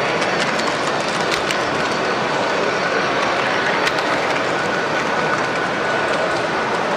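O-gauge model of a BLS Lötschberg-Simplon electric locomotive running along the layout track, with scattered clicks of its wheels over the rail joints, over the steady hubbub of an exhibition hall. A faint steady high tone comes in about halfway through.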